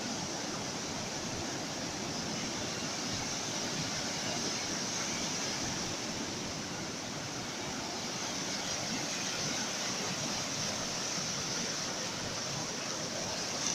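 Ocean surf: a steady rushing wash of breaking waves that holds at an even level, with no separate crashes standing out.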